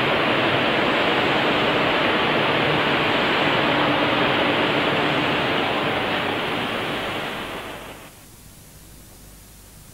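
A steady, loud rushing hiss that fades away about seven to eight seconds in.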